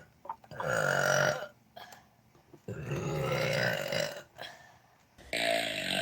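Girls burping: three long burps one after another, the last one still going at the end.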